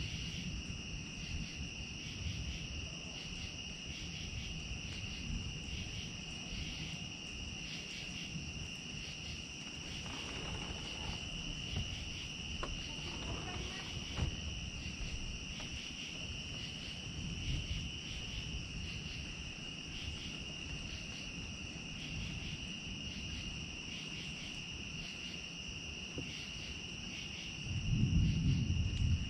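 A steady chorus of crickets: one continuous high pulsing trill. A low rumble runs underneath and swells briefly near the end.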